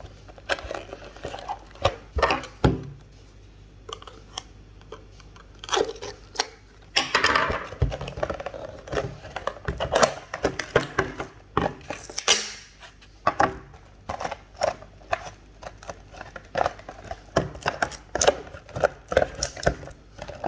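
Packaging being torn open and handled by hand: a long run of rustling, crinkling and sharp clicks and scrapes.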